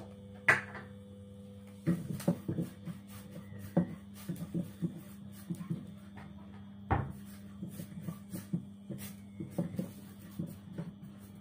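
Silicone spatula knocking and scraping in a nonstick frying pan: a quick irregular series of light knocks, with one louder knock about seven seconds in, over a steady low hum from the electric cooktop heating the pan.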